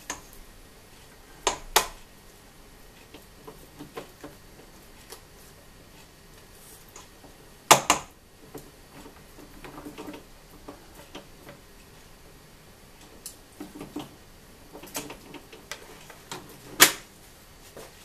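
Spatula scraping dough off a stand mixer's beater, with scattered sharp taps and knocks of spatula and beater against the stainless steel bowl, the loudest about eight seconds in and again near the end.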